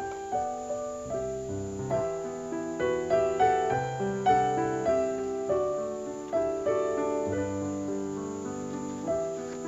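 Background piano music: a gentle melody with chords.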